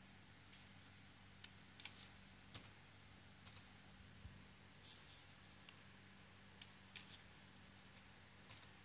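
Irregular sharp clicks of computer mouse buttons and keyboard keys, about a dozen spread across several seconds, over a faint steady low hum.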